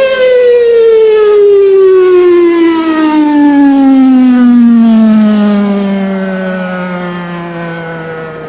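Federal Signal Thunderbolt 1000 outdoor warning siren winding down at the end of its test: its single tone slides smoothly and steadily down in pitch from a high wail to a low moan as the rotor coasts to a stop, growing quieter over the last few seconds.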